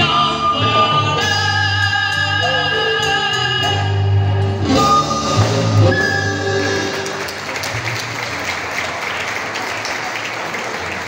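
A live folk ensemble of acoustic guitar, flute, violins, bass and percussion plays the closing bars of a song with singing, with held flute notes carrying vibrato. The music ends about seven seconds in and audience applause follows.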